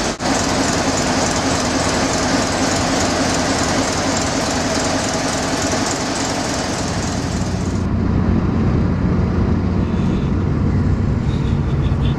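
ABC marine diesel main engine running in the engine room: a loud, steady mechanical din with a steady hum under it. About eight seconds in, the sound cuts abruptly to a duller, lower rumble.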